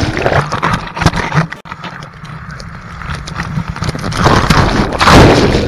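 Breaking surf and churning whitewash tumbling over the camera in the shorebreak: a loud rush at the start that eases off, then a second loud surge about four seconds in as the next wave breaks over it.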